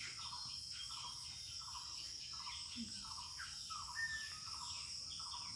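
Faint insects chirring: a steady high buzz with a repeating chirp about twice a second.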